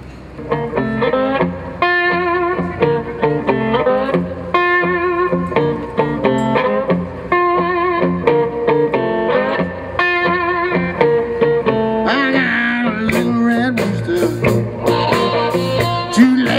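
Live blues band with an electric slide guitar playing an intro of sliding notes. Drums and cymbals come in about two-thirds of the way through.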